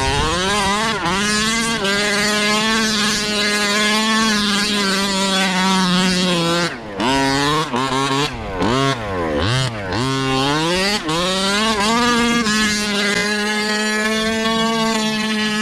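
Radio-controlled car's motor running at a high, steady pitch. Around the middle it drops sharply and climbs again several times as the throttle is eased off and opened, then it holds steady again.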